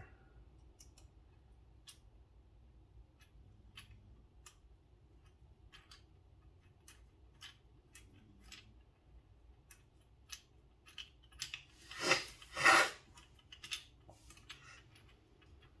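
Small clicks and taps of metal pocket-knife parts and a small tool being handled during reassembly, scattered and irregular, with two louder scraping sounds about twelve seconds in.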